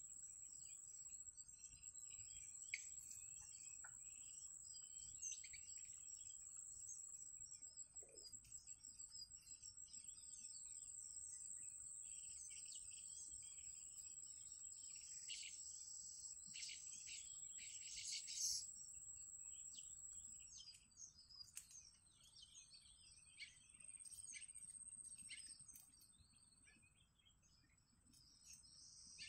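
Faint outdoor ambience of birds chirping in short calls over a steady, high insect drone of crickets or cicadas; the chirping is busiest around the middle.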